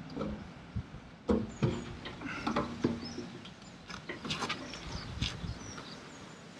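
Clunks and light knocks of a Suzuki SV650 fuel tank being lifted off the frame and handled, the loudest two close together about a second and a half in. Faint bird chirps sound in the background.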